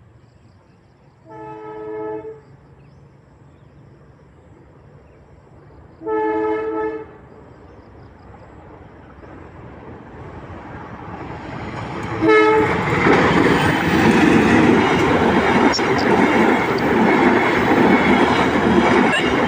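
Train horn sounding two blasts of about a second each as the train approaches the level crossing, the rumble of the train growing louder all the while. A short third blast comes just before the train reaches the crossing, and then the passing train's loud rumble and wheel clatter take over.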